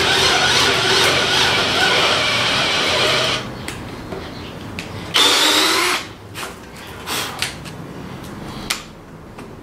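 Bosch GSB 18V-EC brushless cordless drill boring a 7/8-inch hole in a wooden beam with an auger bit, still turning on a battery down to its last bar. The drilling stops after about three and a half seconds. A second short run with rising pitch comes about five seconds in, then scattered light knocks and clicks.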